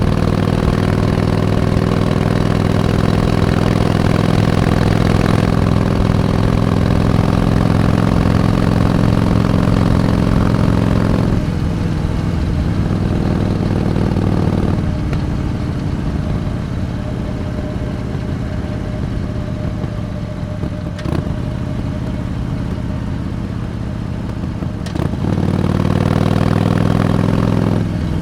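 Harley-Davidson Iron 883's air-cooled V-twin engine running on the road, pulling steadily at first, easing off throttle about a third of the way in, and coming back on the throttle near the end.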